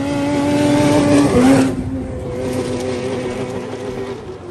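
Racing snowmobile passing at speed: its engine tone builds as it approaches, is loudest about a second and a half in, then drops in pitch and fades as it speeds away.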